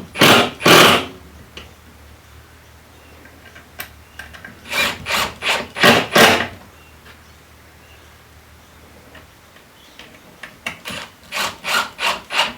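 Impact driver driving screws into the wooden stool top in short bursts: three clusters of rapid rattling strokes, one at the start, one about five seconds in and one just after ten seconds, with pauses between.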